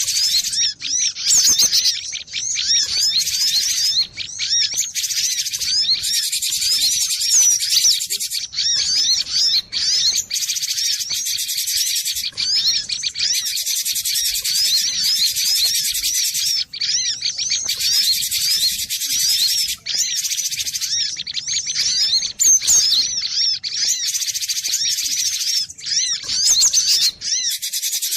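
Gelatik batu (cinereous tit) singing and calling in a fast, near-continuous stream of high, quick chirping notes, broken by a few short pauses.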